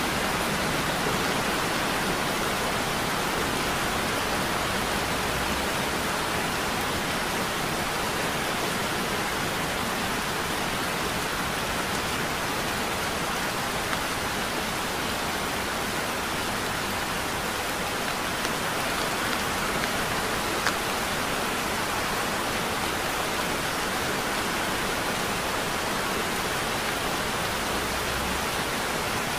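Heavy rain falling steadily, an even hiss of rain with a couple of faint ticks from single drops.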